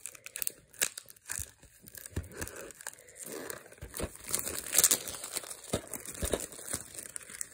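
Plastic DVD cases in factory shrink-wrap being handled, with the wrap crinkling and the cases giving scattered light clicks and taps.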